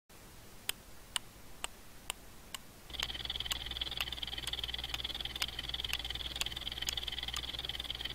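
Clock ticking sound effect, about two ticks a second. About three seconds in, a steady high-pitched buzz with a low hum beneath it comes in under the ticks.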